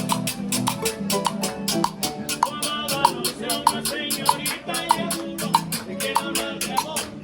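Instrumental vallenato played on guitar and harp, with hand percussion keeping a fast, steady rhythm.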